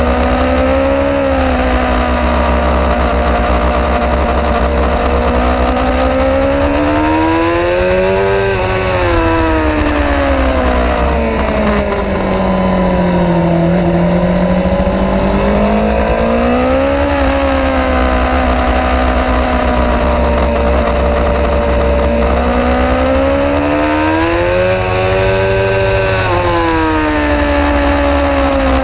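Suzuki GSX-R 750 inline-four engine heard from an onboard camera at track speed. Its pitch rises and falls about four times as the bike drives out of corners and slows into the next, over a steady rumble of wind.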